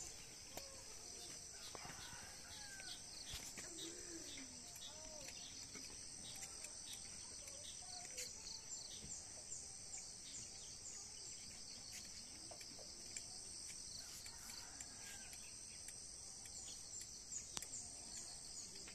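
Faint, steady high-pitched chorus of crickets and other insects, with scattered bird chirps over it.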